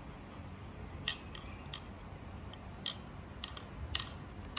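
Light, sharp metallic clicks and taps, a handful spread irregularly with the loudest near the end, as a metal front cover plate is pressed and fitted into place on an industrial five-thread overlock sewing machine.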